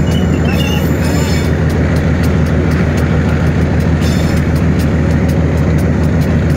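Diesel locomotive engine running steadily under power, a loud low drone, with a faint, rapid ticking over it.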